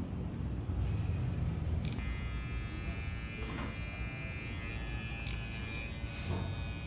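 Madeshow cordless hair clipper running as it cuts the hair at the nape: a steady motor buzz from the blade, with two sharp clicks about two and five seconds in.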